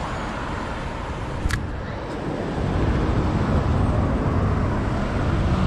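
Road traffic passing close by on a city street, a steady rumble that grows louder about halfway through, with one brief click.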